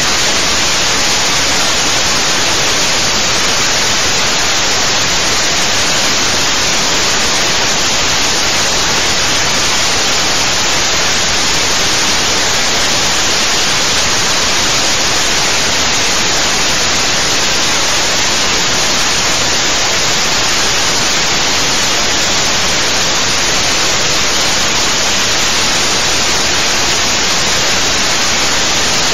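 Loud, steady static-like hiss, even throughout, with no rhythm, knocks or other distinct events in it.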